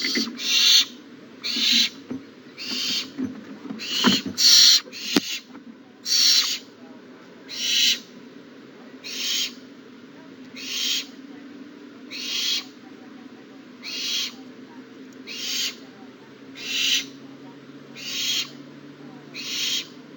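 Owlets giving short hissing screech calls over and over, about one a second at first, then settling to one every second and a half.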